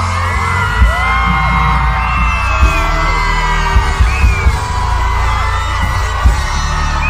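Loud amplified music from a concert sound check, with heavy bass and several hard low thuds. High voices glide over it.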